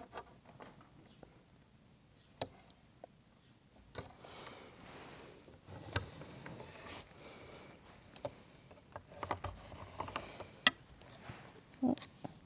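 Hands working with upholstery fabric and a yardstick while measuring: soft rustles and scrapes with a few sharp taps and small knocks, three clicks standing out.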